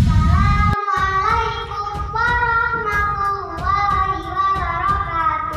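A child singing a melody in long, drawn-out held notes.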